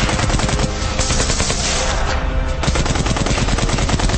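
Machine gun firing long, rapid, continuous bursts of automatic fire.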